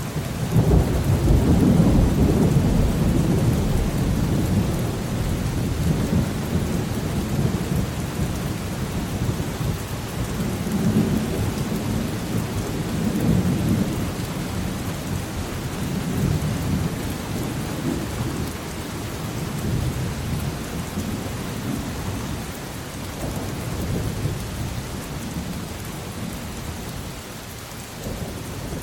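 Steady rain falling through a thunderstorm, with a long roll of thunder that breaks in sharply at the start, is loudest in the first few seconds, then rumbles on in waves and slowly fades.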